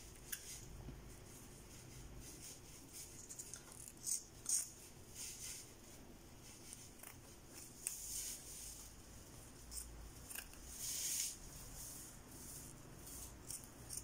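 Faint rustling and rubbing of a wig's fabric cap and sewn-in hair being handled, in short scattered rustles, a few louder ones about four, eight and eleven seconds in.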